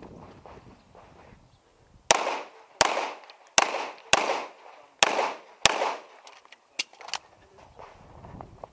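Six pistol shots fired at a competition stage, roughly in three pairs, each crack followed by a short echo. Three fainter sharp cracks follow near the end.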